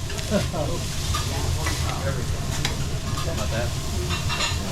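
Food sizzling on a teppanyaki griddle, with scattered sharp metal clicks and scrapes of the chef's spatula working it. Faint voices murmur underneath.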